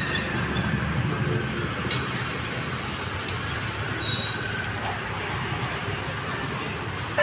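Steady din of a roadside food stall: a low rumble of passing traffic mixed with the rush of a gas burner under a griddle pan. A brief sharp clatter comes a little under two seconds in.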